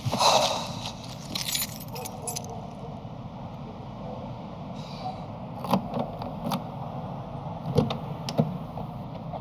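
Keys jangling, then a series of light clicks and knocks over a low, steady hum, with a sharper knock at the very end.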